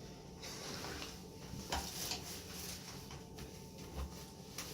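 Rustling and shifting on a chiropractic treatment table as the patient rolls onto her side, with a few small knocks, a sharp click about a third of the way in and a low thump near the end.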